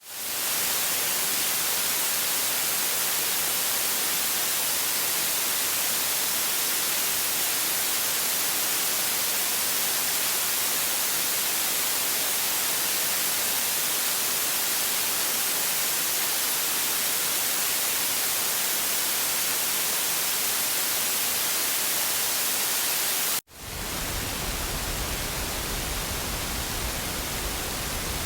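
Steady, even hiss like static. It cuts off abruptly about 23 seconds in and is followed at once by a second, duller rushing noise with more low rumble.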